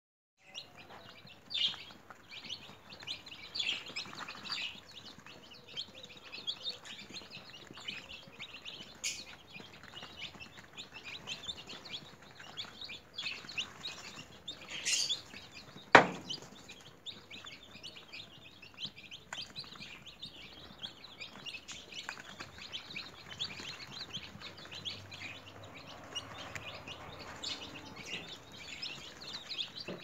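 A flock of newly hatched chicks peeping continuously, with many high, short chirps overlapping. A single sharp knock stands out about halfway through.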